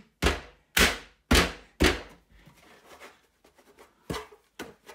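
Four sharp knocks on a hard white plastic LEGO storage box (IKEA BYGGLEK), about half a second apart, as it is handled by hand. Then quieter plastic rubbing and a couple of small clicks as the lid is lifted.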